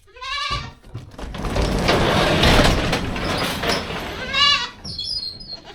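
Nubian goats bleating twice: a short wavering call right at the start and another about four and a half seconds in. Between them is a longer stretch of loud rustling, scuffling noise.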